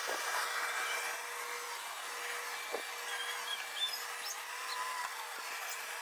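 Dyson DC39 Multifloor canister vacuum cleaner running as its head is pushed over carpet: a steady hiss with a faint steady hum, and a small click about three seconds in.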